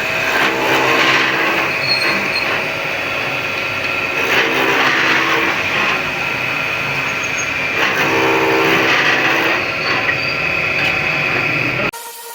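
Wood lathe running, its motor giving a steady tone while a turning tool cuts the spinning wood, with a pattern that recurs about every four seconds. The sound cuts off suddenly near the end.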